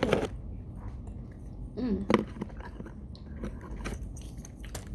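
Close-up eating sounds: a person chewing and biting grilled fish, with scattered sharp mouth clicks and smacks, the loudest right at the start and near the end.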